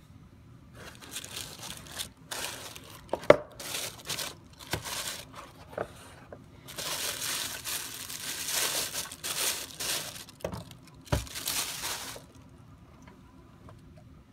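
Plastic bag crinkling in bursts as a mini desktop PC is slid out of it, with a few sharp knocks, the loudest about three seconds in.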